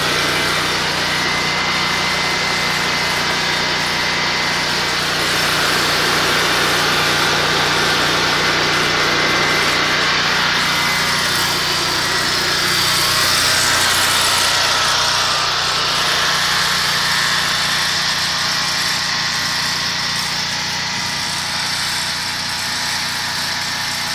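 Portable gasoline-type generator engine running steadily on wood gas from a downdraft gasifier, held under a load test of several kilowatts.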